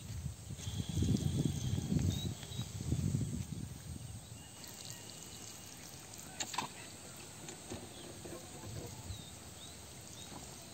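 Outdoor pond ambience: uneven low rumbling for the first few seconds, then quieter background with faint high chirps and a single sharp click about six and a half seconds in.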